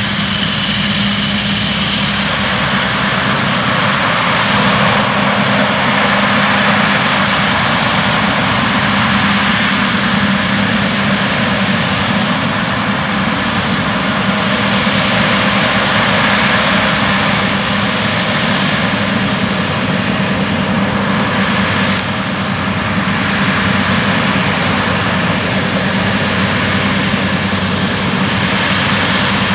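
John Deere X9 combine harvester working in wheat: a steady drone of its engine and threshing machinery, a low hum under a broad rush.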